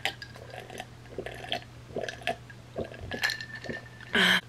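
A person drinking from a glass, with a series of soft swallowing gulps. It ends in one short, louder voiced sound from the mouth just after four seconds.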